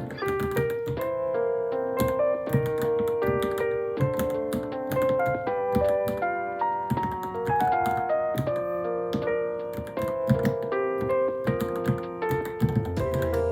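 Keys clicking irregularly as someone types on a Varmilo Minilo keyboard, heard under steady background piano music.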